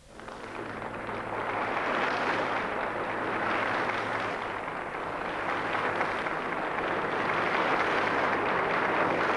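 Theatre audience applauding, swelling over the first two seconds into steady, dense clapping for the singers' curtain call.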